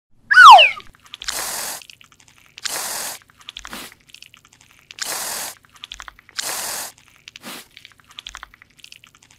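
Aerosol spray can hissing in four short bursts of about half a second each, with faint crackles between them. About half a second in, the loudest sound comes: a short squeal that falls in pitch.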